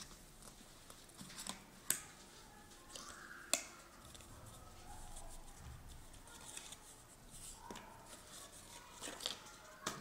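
Small cardboard box being opened by hand: soft rustling and scraping of card and paper, with a few sharp snaps as the flaps pull free, the loudest about two and three and a half seconds in, and two more near the end as the cube is lifted out.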